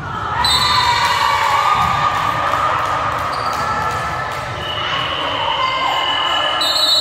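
Crowd noise from spectators at a volleyball match, shouting and calling out in an echoing sports hall. It is loud and continuous, with several voices rising and falling together.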